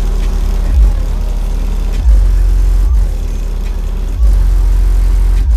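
Car audio subwoofers playing heavy, loud bass notes inside the car cabin. The deep notes change pitch and swell louder every second or so, with little of the music heard above them.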